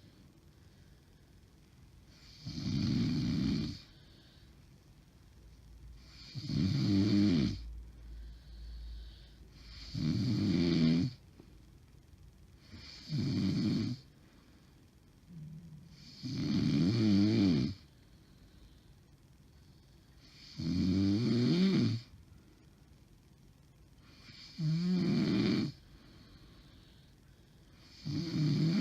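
A woman snoring heavily in her sleep, one long deep snore about every three and a half to four seconds with a quieter breath between. Her husband takes the snoring for a sign of sleep apnea.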